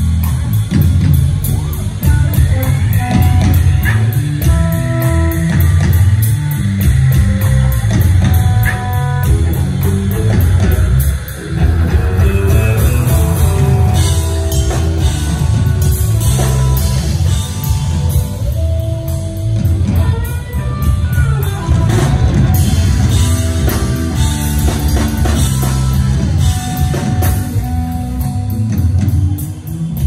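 Live rock band playing an instrumental passage: drum kit and bass driving steadily under a guitar lead line of held and bending notes.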